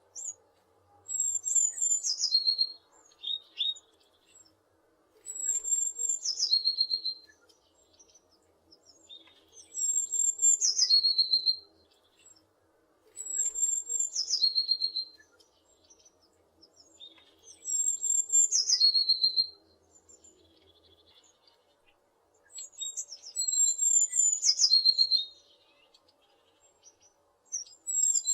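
A tit singing: about seven repeated phrases, each a run of high notes stepping down into a lower rapid trill, coming every four seconds or so.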